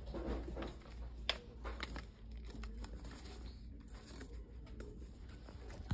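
Slippers and plastic hangers being handled on a store display rack: scattered light clicks and rustles over a low steady hum.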